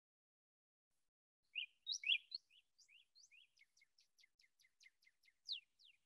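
Recorded northern cardinal song played back: about one and a half seconds in, a few louder whistled notes, then a fast run of short down-slurred notes, about six a second.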